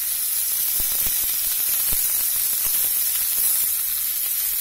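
Flour-dredged carp steaks frying in hot sunflower oil in a pan, second side down: a steady sizzle with scattered small pops and crackles.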